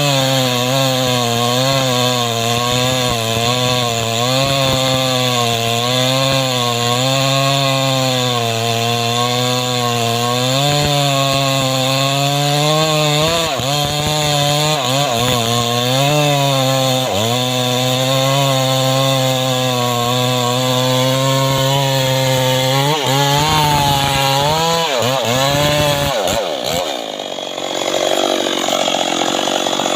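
Two-stroke chainsaw cutting through mahogany under load, its engine note wavering up and down as the chain bites. Near the end the pitch sags sharply several times before the steady note breaks up.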